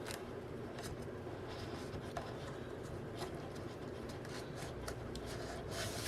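Faint rustling and light scraping of paper, with a few soft ticks, as K-pop album photo booklets are slid back into their packaging.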